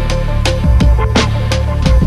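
Background music with a steady beat and deep bass.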